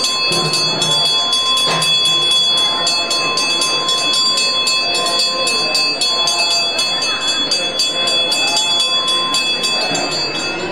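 Brass hand bell rung rapidly and without pause, its steady ringing tones sustained, over voices.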